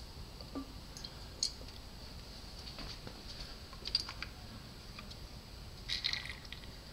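Faint, scattered plastic clicks and taps from a syringe being worked in a motorcycle's rear brake fluid reservoir, drawing out the old brake fluid. A small cluster of clicks comes about four seconds in and another near the end.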